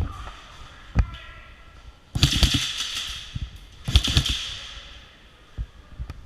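Airsoft guns firing: a single sharp crack about a second in, then two short rapid full-auto bursts, one around two seconds in and one around four.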